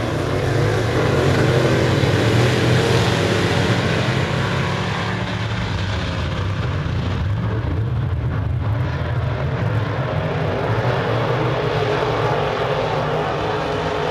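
A pack of open-wheel modified dirt-track race cars at racing speed, their engines at high revs in a loud continuous drone. It swells as the pack passes in the first few seconds, eases as the cars run down the far side, and builds again as they come round.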